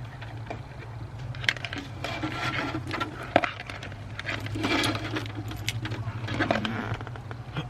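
Wires and a zip-tie feeder being pulled through a car door's wiring passage: irregular rustling, scraping and clicking of plastic and wire, with one sharp click about three seconds in, over a low steady hum.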